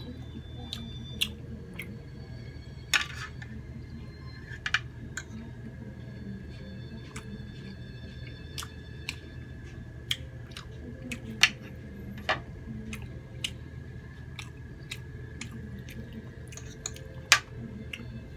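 Knife and fork clinking and scraping on a ceramic plate while cutting grilled squid, with chewing in between. Scattered sharp clicks of cutlery on the plate, a few much louder than the rest, the loudest near the end.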